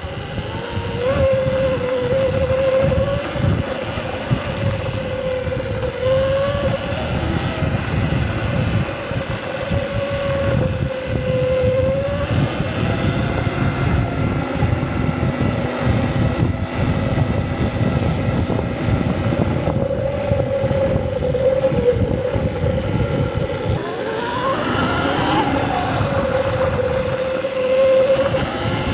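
Electric dirt bike under way: the motor and drivetrain whine, rising and falling in pitch with the throttle, over a heavy low rumble. Near the end the whine sweeps up sharply and drops back.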